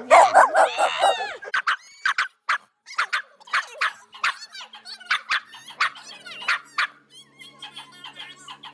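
A Boston terrier vocalizing loudly with a wavering pitch in the first second. It is followed by a run of short sharp sounds, two or three a second, that stop about seven seconds in.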